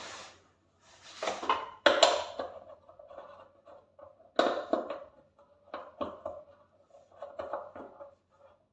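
Hard parts being handled and knocked during work on a microwave's turntable motor: a series of separate knocks and short scraping strokes, several followed by a brief ringing tone.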